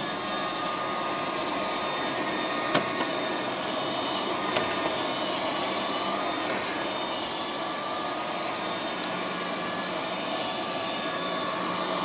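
Liectroux B6009 robot vacuum cleaner running on carpet, its motor whirring steadily as it drives out from under a chair, with two brief sharp clicks a couple of seconds apart.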